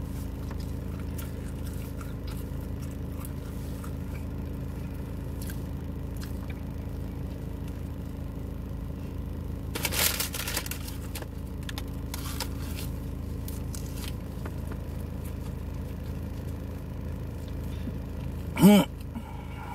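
Chewing a fried chicken sandwich, with soft mouth noises over a steady low hum inside a car, and a louder crunch about ten seconds in. A brief voice sound that rises and falls in pitch near the end.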